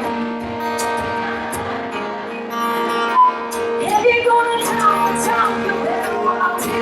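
Live band music led by guitar at a concert, with a sung vocal line coming in about four seconds in.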